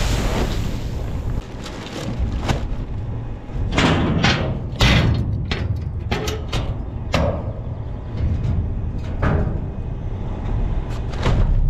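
Seed bags being handled and emptied into a seeder tank: a series of separate thumps and swishes over a low, steady machine rumble.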